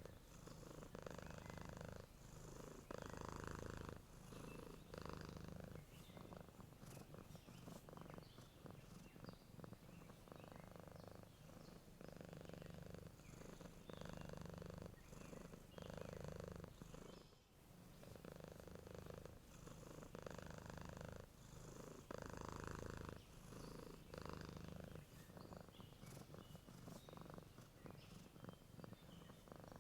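Domestic cat purring steadily and faintly, the purr swelling and easing with each breath about every two seconds.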